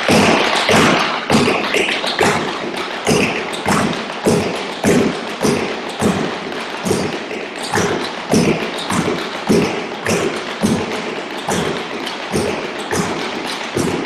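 Tap shoes striking portable wooden tap boards, with several dancers tapping together in a fast, steady run of sharp taps and heavier thuds.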